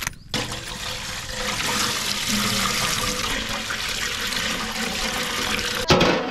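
Milk pouring in streams from plastic pouches into a large aluminium pot, a steady splashing pour. Near the end comes a sharp metallic knock and clatter as the aluminium lid goes onto the pot.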